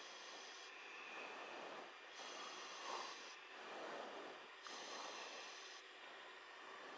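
Faint, slow breathing over an aircraft intercom microphone, one breath roughly every two and a half seconds, with a steady hiss behind it.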